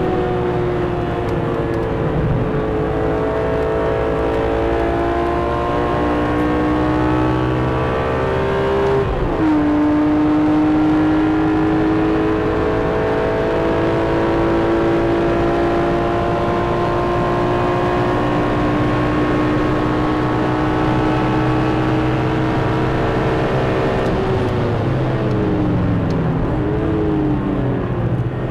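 Car engine heard from inside the cabin, pulling hard at full throttle with its note climbing steadily. About nine seconds in, one quick upshift drops the pitch, and the note then climbs again for a long stretch. Near the end it falls away as the throttle is lifted, with a couple of short revs as it is shifted down.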